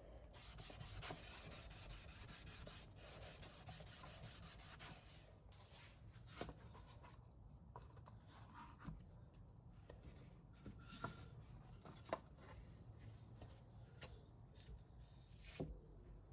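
Faint rubbing of a cloth wiping oil over a veneered wooden panel for the first five seconds or so, then a few light taps and ticks of handling.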